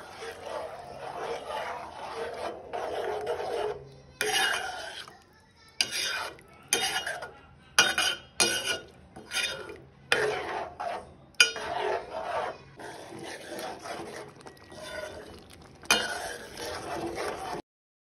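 A spoon stirring and scraping thick curry in a steel pot, in short stretches that start and stop abruptly.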